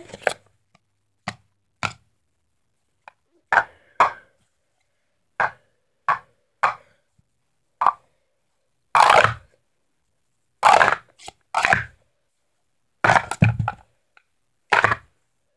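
Green Speed Stacks sport-stacking cups clacking as they are set down, stacked into pyramids and brought back down: a string of separate sharp plastic clacks at an uneven pace, with several louder, longer clatters in the second half.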